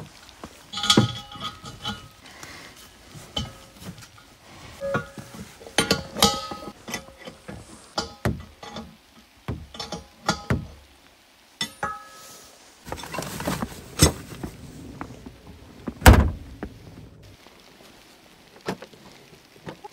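A run of irregular knocks and thuds with several metallic clinks that ring briefly, a short scraping stretch around thirteen seconds in, and the heaviest thud about sixteen seconds in.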